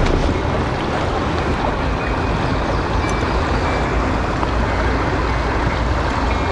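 Small rocky stream flowing over stones close by: a steady wash of running water.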